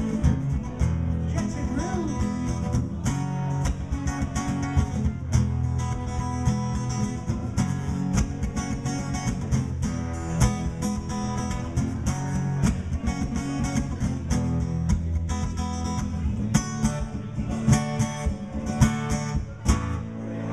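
Two acoustic guitars playing an instrumental passage, strummed chords in a steady rhythm.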